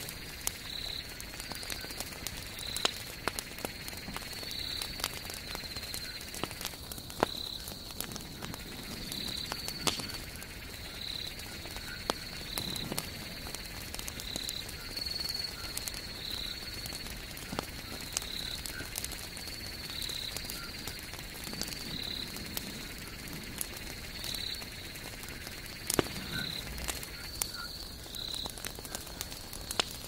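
Wood campfire crackling, with frequent sharp, irregular pops from the burning logs and embers. Behind it a small night animal gives a high-pitched call about once a second.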